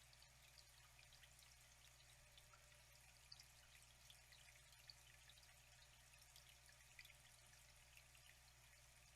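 Faint flowing water, trickling steadily with many small droplet splashes.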